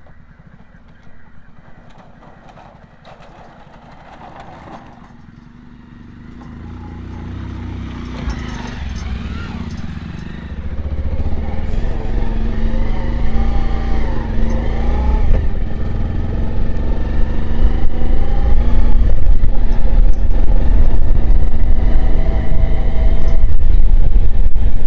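Motorcycle being ridden with its engine running, heard from the rider's seat. The sound is fairly quiet at first, grows louder from about six seconds in, and from about eleven seconds stays loud with a heavy low rumble, as of wind on the microphone as the bike picks up speed.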